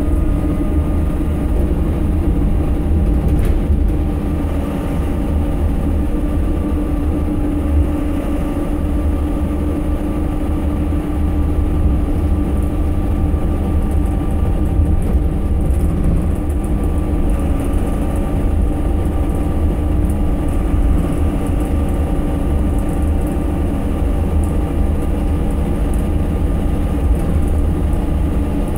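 Steady low rumble of an Optare Solo bus's rear-mounted Mercedes-Benz diesel engine and driveline, heard from the back of the saloon while the bus is under way. A steady whine runs through it, with road noise.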